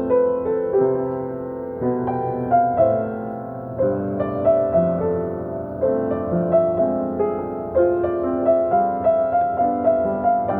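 Solo piano playing a slow melody over held lower notes, with new notes struck about every half second.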